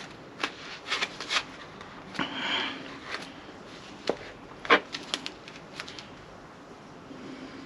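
Filler knife working two-part wood filler onto a wooden door frame: several sharp clicks and taps, with one longer scrape about two seconds in.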